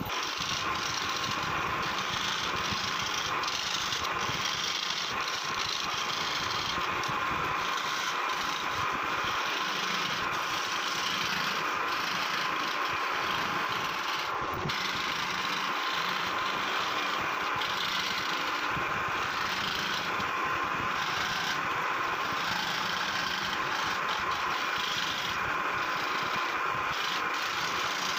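Electric scroll saw running steadily, its thin reciprocating blade cutting fretwork through a wooden panel, with a rasping cutting noise that comes and goes as the piece is guided along the lines.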